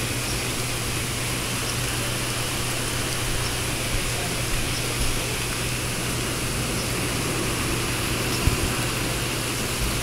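Steady rain falling, a continuous even hiss, with a low steady hum underneath and a few faint ticks.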